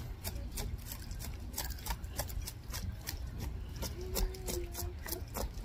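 A knife scraping the scales off a whole croaker fish: a quick, irregular run of sharp scraping clicks. A short steady tone sounds for about a second about four seconds in.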